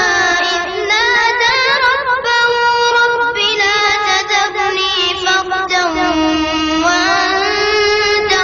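A boy's voice in melodic Quran recitation (tajweed), holding long, ornamented, wavering notes with a few brief pauses for breath.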